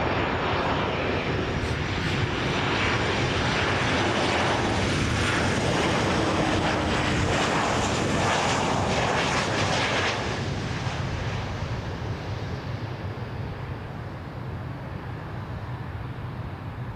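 Boeing 737-700's CFM56-7B turbofan engines on landing approach: a loud, steady jet rumble with a high fan whine that sinks slightly in pitch as the jet passes. The sound fades after about ten seconds as the aircraft moves away toward the runway.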